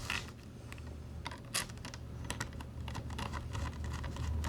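Light clicks and taps of a small screw and 3D-printed plastic case parts being picked up and fitted together by hand, over a low steady hum.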